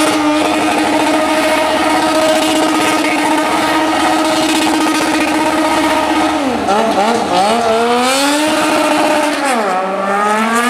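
Formula 1 car engine held at high revs for about six seconds, then dropping and climbing back up twice as it is driven again.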